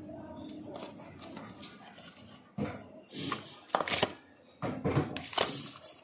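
Plastic packets and a plastic tub handled right beside the microphone, with a run of loud rustles and knocks starting about halfway through. Before that there is only a faint murmur in a small kitchen.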